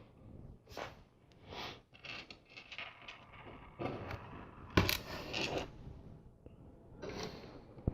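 Small plastic LEGO pieces clicking and clattering as they are handled and snapped together, with a sharper click about five seconds in.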